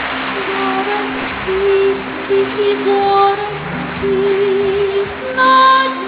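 Slow music with long held notes forming a melody. A louder high note comes near the end.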